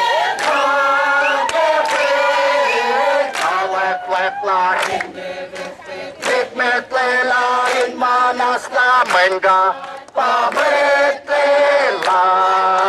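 A crowd singing together in chorus, many voices holding long notes; from about a third of the way in the song breaks into short phrases punctuated by hand claps.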